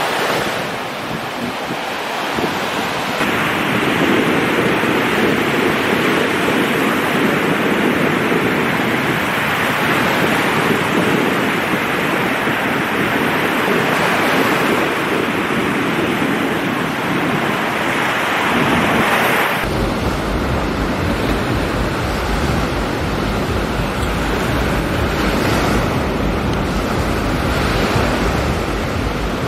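Sea surf breaking on a sandy beach, a steady rush of waves, with wind on the microphone. About twenty seconds in, the sound changes abruptly and a low wind rumble comes in.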